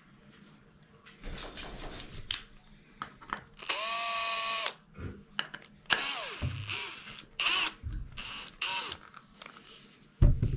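Milwaukee M18 cordless drill driving a screw into a cedar board in short trigger bursts: one run of about a second that spins up and holds, then shorter runs that wind down. A single wooden thump near the end as the piece is set down on the base.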